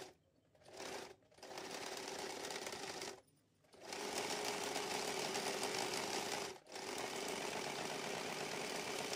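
Electric household sewing machine stitching in short runs, its motor humming steadily under the fast needle clatter. It stops and starts again about a second in, around three seconds, and briefly again near seven seconds, as the fabric is turned while sewing around a curved edge.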